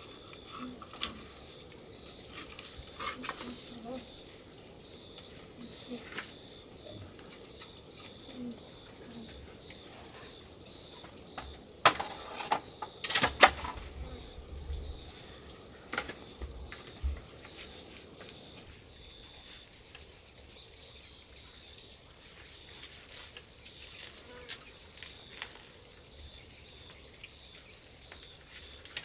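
Steady high-pitched chirring of crickets in a chorus, with scattered sharp knocks and clacks, the loudest cluster a little before halfway.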